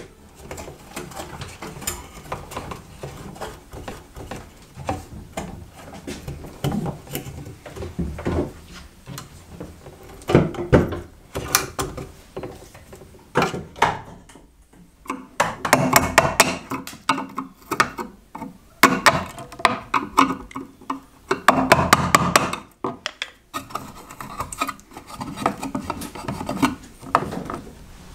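Hands-on work against wooden shed framing during an electrical rough-in: irregular knocks, taps and rubbing, with clusters of quick sharp knocks in the second half.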